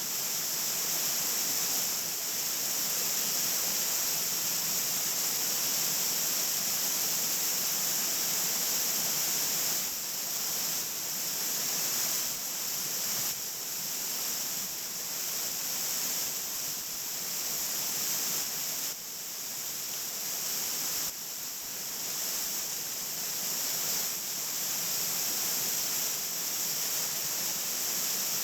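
Mountain waterfall (Fudō Falls) pouring steadily: a constant rush of falling water that dips slightly in level a few times.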